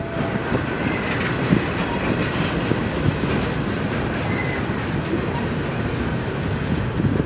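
Double-stack intermodal container train passing close by: a steady rolling noise of its steel wheels on the rails as the well cars go past.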